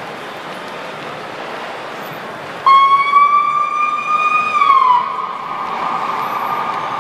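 An emergency-vehicle siren starts suddenly about three seconds in. Its pitch rises slowly for nearly two seconds, then drops, and the sound trails off.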